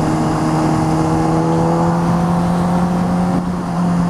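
Honda CBR600 sport bike's inline-four engine pulling under way, its pitch rising slowly, with a brief dip in level about three and a half seconds in.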